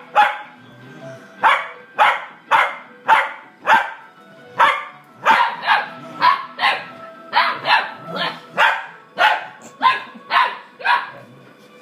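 A dog barking over and over in play fight, short sharp barks at about two a second, with a brief pause near the start and another around the middle.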